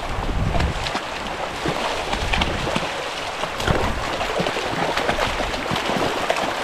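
Shallow, stony stream running over rocks, with irregular splashing as dogs and a person wade through it.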